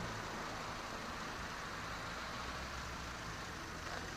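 Steady low rumble of distant city traffic with an even hiss, with no separate events standing out.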